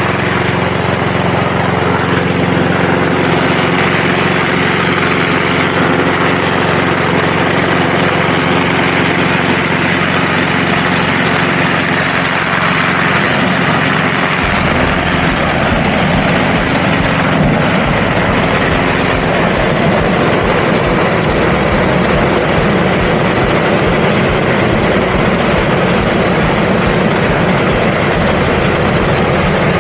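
Hot air balloon inflator fan driven by a small petrol engine, running steadily to blow cold air into the envelope, with a constant hiss of rushing air. About halfway through a deeper rumble joins in and stays.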